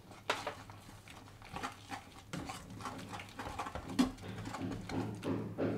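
Metal ladle stirring thick boiled masoor dal in an aluminium kadai, mixing in turmeric: irregular scrapes and soft knocks of the ladle against the pan, with one sharper clink about four seconds in.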